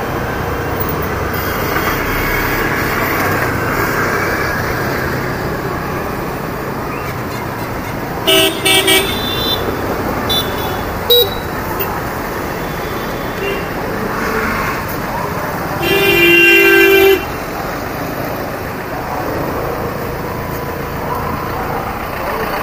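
Hero Destini 125 FI single-cylinder scooter engine running while riding through city traffic, with steady road and traffic noise. Vehicle horns honk: a few short toots about eight seconds in, a brief one a few seconds later, and a longer blast around sixteen seconds that is the loudest sound.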